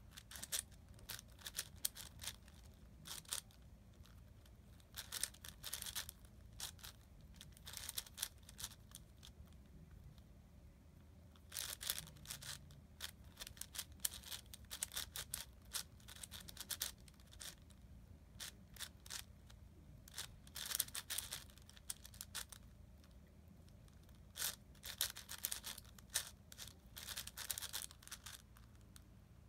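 Plastic layers of a big magnetic speedcube (YJ MGC) being turned fast during a solve: bursts of rapid clicking and clacking with short pauses between them.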